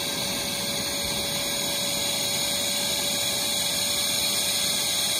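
iRocker 12-volt electric SUP pump running steadily on deflate, sucking the air out of an inflatable kayak's drop-stitch floor, with a constant hum over a whirring hiss.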